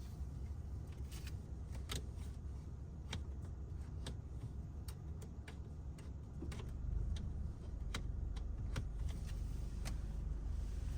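Car running, heard from inside the cabin as a steady low rumble that grows louder about seven seconds in. Over it come sharp ticks or taps roughly once a second at uneven intervals.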